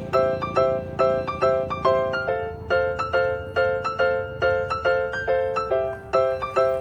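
Background music: a keyboard playing a steady run of short, bright notes.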